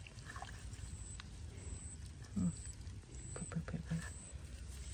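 Hands digging in wet mud among grass: soft crackles and small squelches over a steady low rumble, with a brief low voice sound about halfway through.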